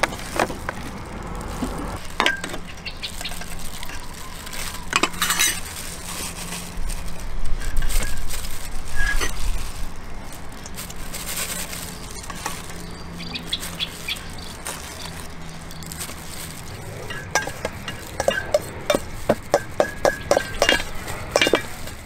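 A metal spoon stirring and scraping in a stainless steel mixing bowl, with irregular clinks against the bowl that come thicker near the end, as a salad of horseshoe crab eggs is tossed.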